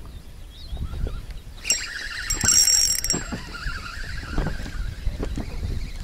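Spinning reel being cranked, a whirring with a high steady whine for about a second and a half from about two seconds in. Wind rumble on the microphone and light knocks of water against the boat run underneath.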